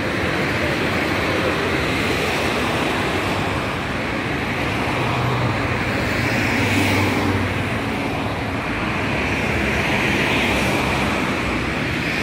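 Road traffic: cars driving past close by on a city boulevard, a steady mix of engine and tyre noise that swells as individual cars pass.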